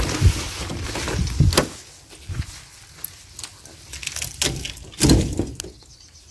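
A polycarbonate greenhouse door knocking and rattling as it is opened and pushed to, with a few loud knocks in the first second and a half and another about five seconds in.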